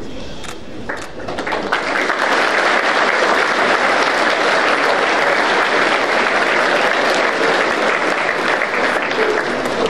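Large crowd clapping: a few scattered claps, then the applause swells about a second and a half in and holds steady.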